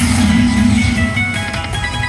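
Slot machine's electronic bonus music and chiming tones, with several steady notes layered together, during a hold-and-spin bonus round.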